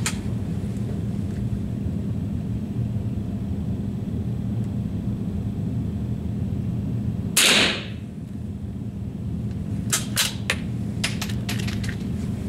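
A single rifle shot about seven and a half seconds in, over a steady low hum. A few sharp clicks follow a couple of seconds later.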